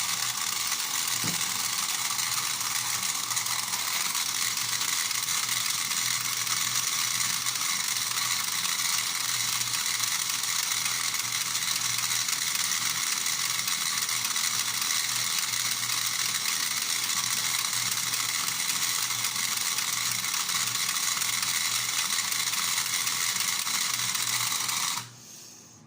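Battery-powered toy horse-racing game running: its small electric motor vibrates the track, making a steady mechanical buzzing rattle that drives the toy horses along. It cuts off suddenly about 25 seconds in.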